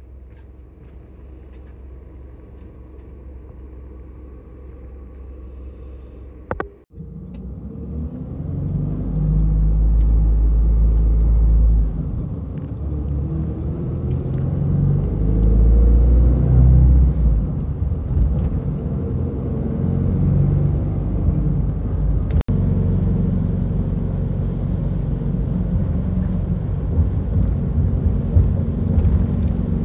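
Coach bus heard from inside the passenger cabin: a quiet engine hum while it stands, then, after a brief drop about seven seconds in, a much louder low diesel rumble with tyre noise as it drives. The engine note rises twice as it gathers speed.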